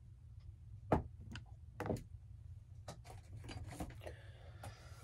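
Handling noise of objects being moved about close to the microphone: a run of clicks and knocks, with two louder knocks about one and two seconds in, over a steady low hum.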